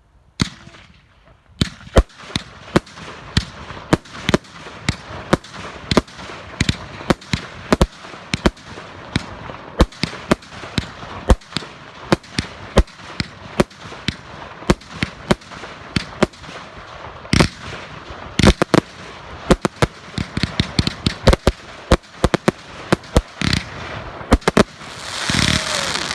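Consumer firework barrage, Icon's Absolute Black Label, firing shot after shot: rapid sharp bangs, about two to three a second, starting about a second and a half in. A dense crackling rush comes near the end.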